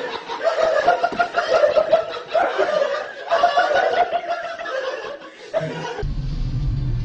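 A person laughing in repeated chuckling bursts, cut off suddenly about six seconds in by a steady low rumble.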